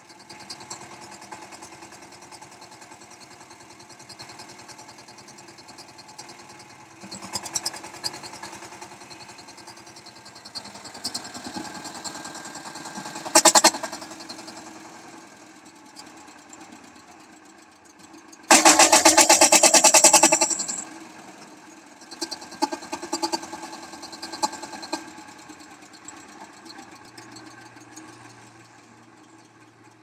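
Sardar single-cylinder diesel engine on a concrete mixer being hand-started, with a fast, even clatter and two louder bursts: a short one about 13 seconds in and a longer one from about 18 to 21 seconds.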